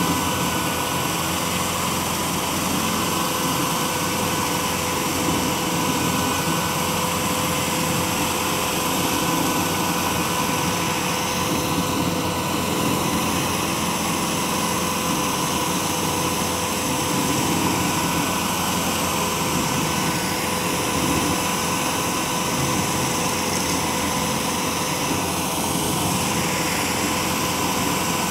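Tracked stump grinder running steadily while its cutter wheel grinds into a stump, with an even pitched whine over the engine noise.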